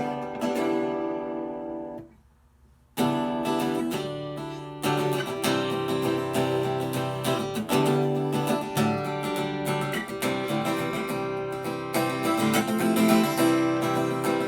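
Acoustic guitar strummed: a single chord rings out for about two seconds and stops, then after a second's pause steady strummed chords begin as a song intro.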